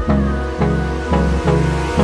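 Background music: an instrumental passage of a pop song with sustained chords and a steady beat.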